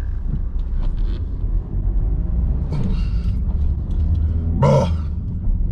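A car passing fast close by, swelling to its loudest a few seconds in, over a steady low rumble.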